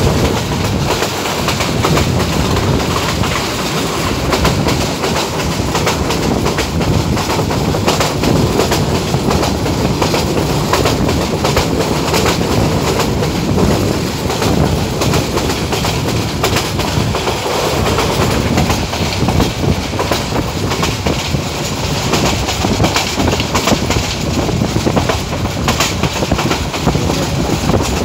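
Passenger train running at speed, heard from the carriage window: a steady rolling rumble with the clickety-clack of the wheels over the rail joints.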